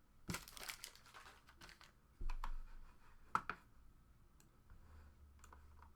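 Trading cards and card packs being handled: scattered light clicks and short rustles of cards and pack wrappers, with a louder cluster about half a second in, a low thump a little after two seconds and a couple of sharp clicks a little after three seconds.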